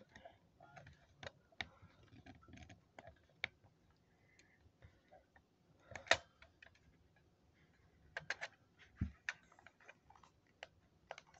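Faint, irregular plastic clicks and taps from handling the RC car's remote controller while trying to open its battery compartment, with one sharper click about six seconds in.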